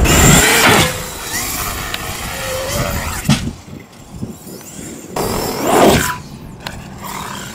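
Traxxas X-Maxx electric RC monster truck driving and jumping: its brushless motor whines up and down in pitch, with loud tyre and landing noise near the start and a short knock a little after three seconds. The sound changes abruptly a few times.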